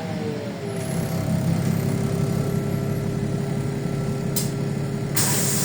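LiAZ 5292.65 city bus drivetrain slowing: its whine falls in pitch in the first second, then settles into a steady hum as the bus comes to rest. A short air hiss comes near the end, then a loud steady air hiss from the bus's pneumatics.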